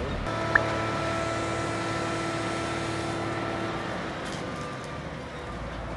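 Caterpillar 140M motor grader working close by: a steady engine whine that fades about four seconds in, with a sharp clack about half a second in.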